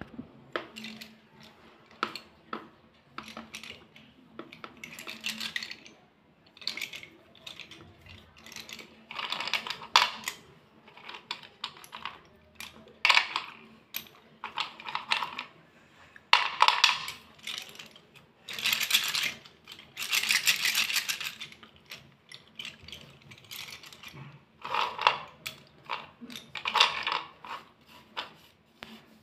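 White slate pencil sticks clicking and clattering against each other as they are picked up and handled in a bundle, in many separate clicks and in clattering runs a second or two long.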